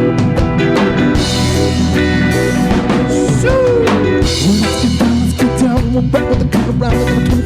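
Live band playing an instrumental passage of a song, with a drum kit keeping a steady beat under bass and other instruments. About halfway through, one held note slides down in pitch.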